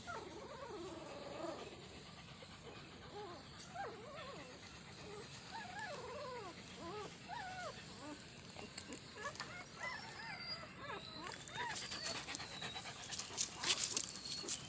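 Several newborn puppies whimpering and squeaking, short rising-and-falling cries overlapping one another. In the last few seconds, higher squeals and a run of clicking, rustling sounds grow louder.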